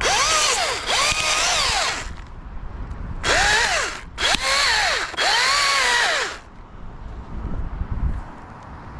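Chainsaw revved in short bursts making quick small cuts, five rises and falls in pitch over about six seconds, with a short gap after the first two and quieter from about six and a half seconds on.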